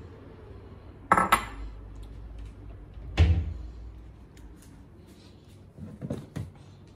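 Kitchen handling sounds: a sharp crockery clink with a brief ring about a second in, a heavier thump a couple of seconds later, then lighter knocks as a plastic cereal container is taken off a pantry shelf near the end.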